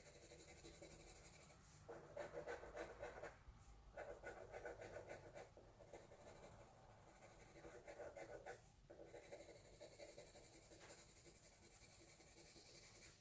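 Faint scratching of a soft black pencil shading on paper: many quick strokes grouped in runs of a second or so, with short pauses between them.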